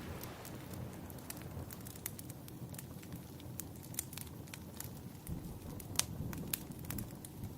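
Wood fire crackling, with scattered sharp pops over a low, steady rumble of the flames; the loudest pop comes about six seconds in.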